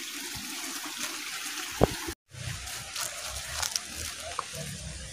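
Steady hiss of trickling water with a few light clicks and rustles; the sound drops out for a moment about two seconds in.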